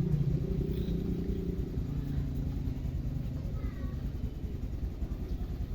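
A motor running with a steady low hum that fades after about two seconds, over a continuous low rumble.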